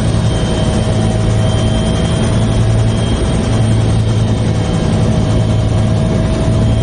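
Helicopter turbine and rotor noise heard from inside the cabin with the side door open: a loud, steady drone with a low hum under a thin, steady whine.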